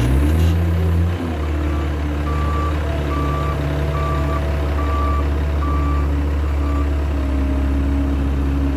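Case skid steer loader's diesel engine running, a little louder in the first second before settling to a steady drone. Its reversing alarm beeps about six times at an even pace as the machine backs up.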